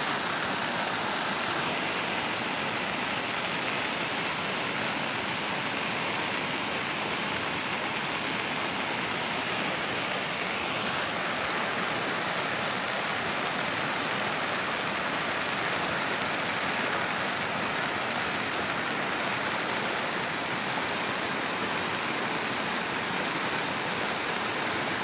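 Muddy stream in spate after heavy rain, rushing over a road as a steady, unbroken wash of flowing water.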